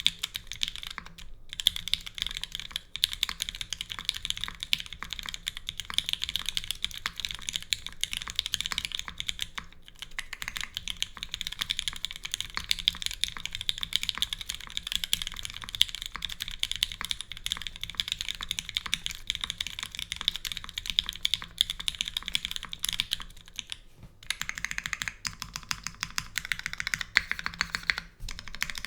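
Continuous fast typing on a custom mechanical keyboard with lubed, filmed Gateron Minks linear switches, GMK keycaps and a full aluminium plate with no foam, dense clacky keystrokes with short pauses a few times.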